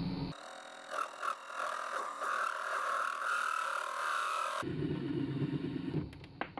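7x14 mini lathe parting off a small workpiece: the motor's low running hum, which gives way about a third of a second in to a high-pitched squeal from the parting tool cutting for about four seconds, then the low hum again near the end.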